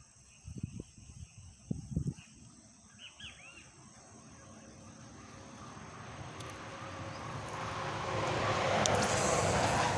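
A rushing noise that swells steadily over several seconds to its loudest near the end, over a high steady insect drone. A few soft thumps come in the first two seconds, and a bird gives a brief run of chirps about three seconds in.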